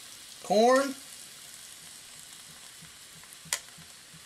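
Liquid from a can of corn pouring into a hot electric skillet, over a steady sizzling hiss with faint, even soft pulses. There is a single sharp click about three and a half seconds in.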